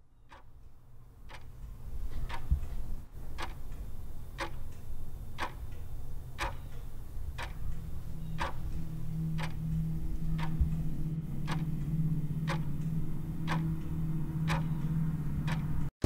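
Clock ticking steadily, about one tick a second with fainter ticks between, fading in from silence. A low steady hum comes in about halfway and holds under the ticking.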